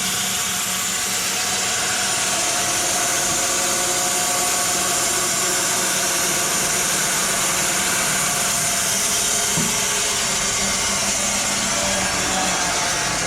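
Sawmill machinery running steadily: a constant mechanical hum under a broad hiss.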